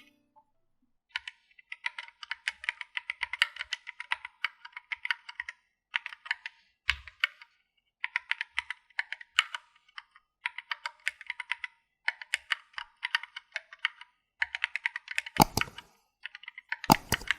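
Fast typing on a Keychron Q8 mechanical keyboard with an aluminium case and PBT double-shot keycaps: dense runs of key clacks in bursts with short pauses, and two heavier knocks near the end.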